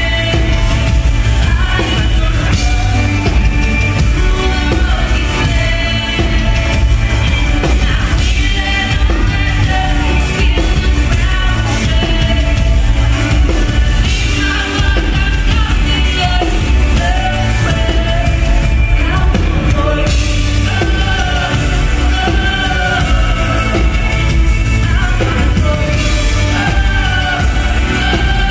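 Live pop band performing: a woman singing lead over keyboards, electric guitar, drums and a heavy bass.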